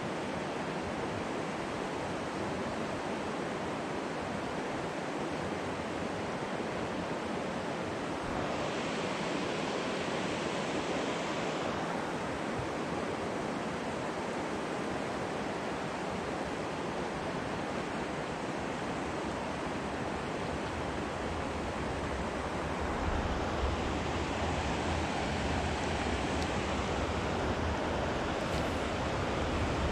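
Steady rush of a flowing river running over rocks. From about two-thirds of the way in, a low rumble of wind on the microphone joins it.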